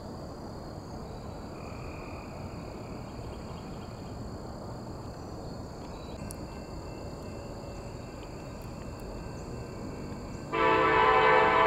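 Quiet steady outdoor background with a thin high steady whine, then about ten and a half seconds in a diesel locomotive's air horn starts sounding, a loud sustained multi-note chord: an approaching Kansas City Southern train blowing for the grade crossing.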